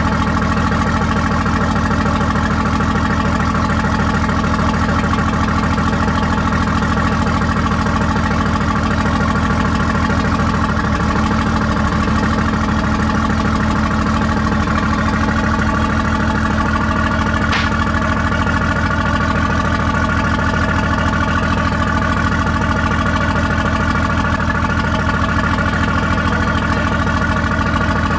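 The engine of a WWII LCVP Higgins boat idling steadily, an even, unbroken running sound with a low, regular pulse.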